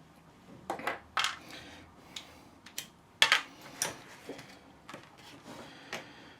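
Telescopic suitcase handle parts being handled and worked: a scatter of sharp clicks and clacks of hard plastic and metal, the loudest a little after three seconds.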